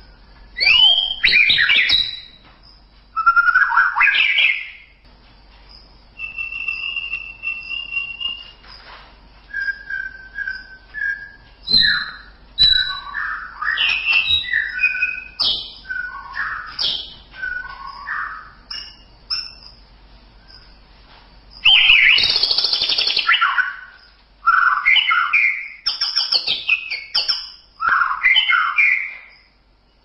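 White-rumped shama singing: a varied run of phrases with short pauses between them, made of clear held whistles and quick rising and falling notes. A harsh, rasping phrase comes about 22 seconds in.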